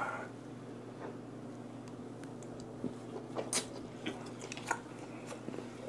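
A mouthful of vinegar-cured mackerel sashimi (shime saba) being chewed close to a lapel microphone: scattered wet smacks and soft crunches, coming thicker in the second half.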